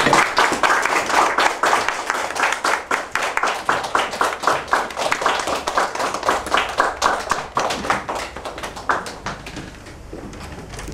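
Audience applauding with many hands clapping, the clapping thinning out and dying down near the end.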